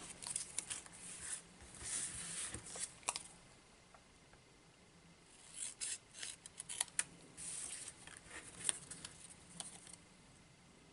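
Scissors snipping through designer paper, cutting squares diagonally into triangles: a run of short snips, a pause of about two seconds near the middle, then another run of snips.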